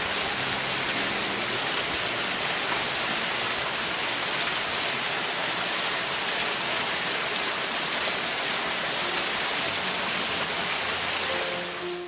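Small rocky stream splashing down a low cascade into a pool: a steady rush of running water.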